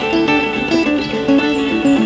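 Two layered guitars improvising, with a quick stream of overlapping plucked single notes.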